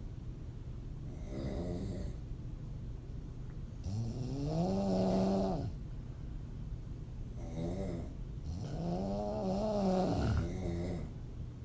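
A woman snoring through an open mouth: a short snore about a second in, then a long pitched snore with a wavering tone, followed by another short snore and another long one.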